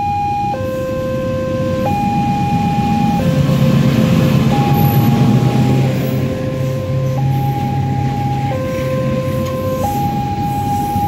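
Railway level-crossing warning alarm: an electronic two-tone signal switching back and forth between a lower and a higher tone about every 1.3 seconds. A freight train of fuel tank wagons passes under it, with a low engine drone swelling from about three seconds in and fading after about seven, then the steady noise of the wagons rolling by.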